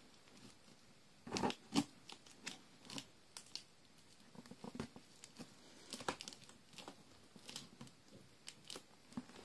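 Packing tape being cut and torn off the top of a cardboard box, in short scattered tearing and crinkling noises, the loudest pair about a second and a half in.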